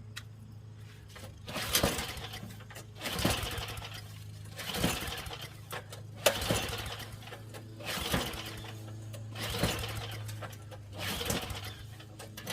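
Tecumseh snowblower engine being cranked over about eight times, about one every second and a half, without catching. The owner cannot tell whether it is flooded or short of fuel.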